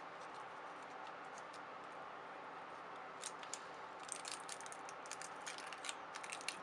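Aluminium foil being pressed and smoothed onto a motherboard by hand: small crinkles and clicks starting about three seconds in and growing busier, over a steady faint hiss.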